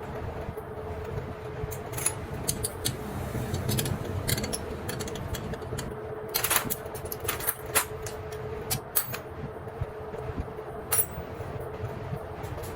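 Metal parts and hand tools clinking and clicking at irregular moments over a steady hum and low rumble.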